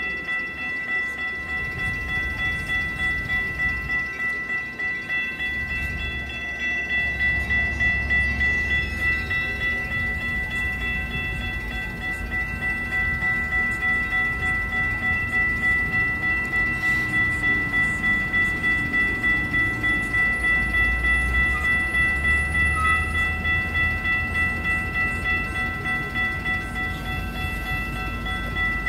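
Safetran Type 3 electronic crossing bells ringing on an activated railroad grade crossing: a fast, even, ringing tone that goes on without a break. A low rumble runs underneath and swells twice.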